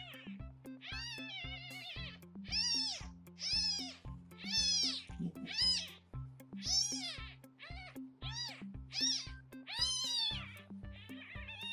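Newborn kitten, about three days old, mewing over and over: about a dozen high, thin mews, each rising and falling in pitch, less than a second apart. Background music plays underneath.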